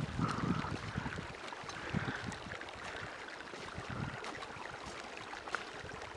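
Wind buffeting the microphone in low rumbling gusts over a steady hiss, strongest at the start and easing off, with a few weaker gusts later on.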